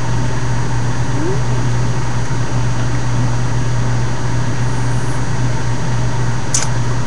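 A steady low hum over a constant hiss, with a single short click near the end.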